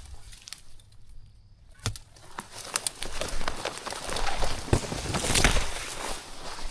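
Footsteps through dry bush, with twigs and dry leaves crackling underfoot and vegetation brushing past; the rustling grows louder from about halfway in.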